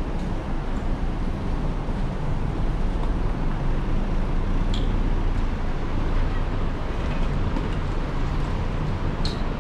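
Steady city-street ambience: a low rumble of road traffic. Two brief high-pitched sounds stand out, one about halfway through and one near the end.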